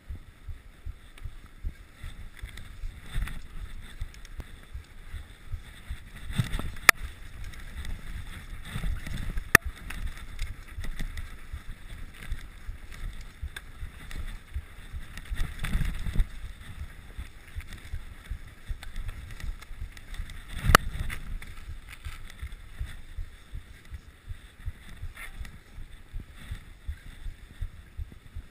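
Mountain bike ridden over snow, heard from a camera on the rider: an uneven rumble of the tyres and frame with wind buffeting the microphone, and a few sharp knocks as the bike goes over bumps.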